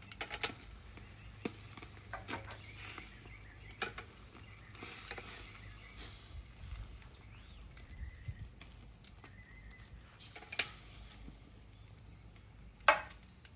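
Freshly grilled steaks sizzling with a steady hiss, broken by scattered light clicks and two sharper knocks near the end.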